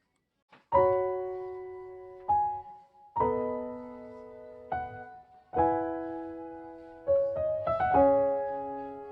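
Background piano music: slow chords, each struck and left to ring out and fade, with a run of quicker notes near the end. The music starts after a brief silence.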